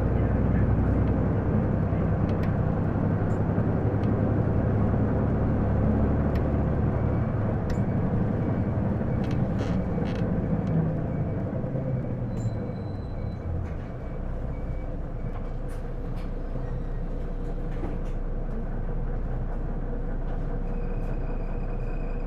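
Isuzu PJ-LV234L1 city bus heard from inside the cabin: its diesel engine and drivetrain run under way, then settle to a quieter steady idle hum about 13 seconds in. A faint high steady tone starts near the end.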